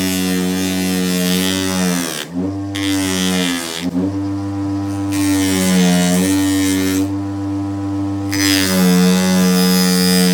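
Electric power tool motor whining steadily and working against rusty metal, with stretches of abrasive hiss that start and stop. The motor's pitch sags sharply and recovers twice, about two and four seconds in.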